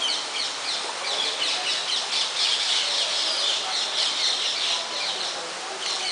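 A flock of small birds chirping busily in the trees, many short high calls overlapping, with a brief pause near the end.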